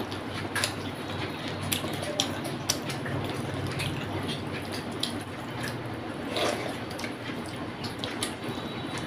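Wet, sticky eating sounds of rice mixed with rohu fish curry by hand: fingers squelching through the rice and fish, chewing and lip smacks, with scattered sharp clicks.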